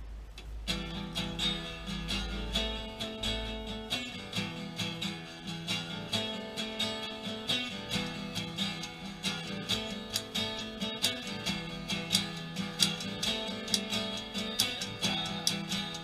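Acoustic guitar strumming chords, starting just under a second in, with typewriter keys clacking along in rhythm as percussion.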